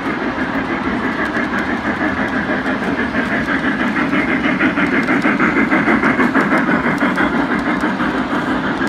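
Model steam locomotive and passenger cars running by on the layout's track: a steady rumble of wheels with fast rhythmic clicking, getting louder as the train passes close.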